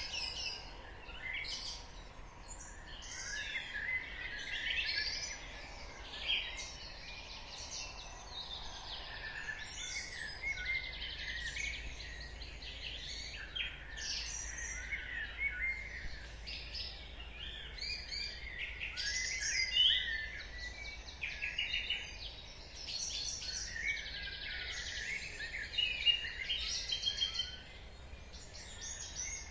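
Dawn chorus: many songbirds singing at once, a dense overlap of whistled phrases, trills and chirps, over a faint low rumble.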